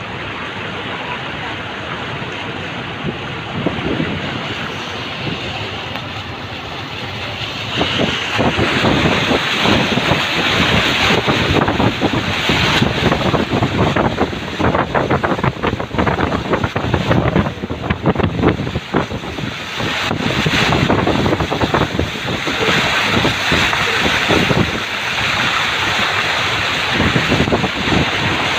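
Car wading through deep floodwater, with water surging and splashing against the body. The splashing grows louder about eight seconds in.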